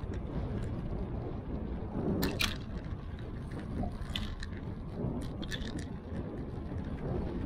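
Wind rumbling on an action camera's microphone, with a burst of sharp clicks and rattles about two seconds in and a few more clicks a couple of seconds later.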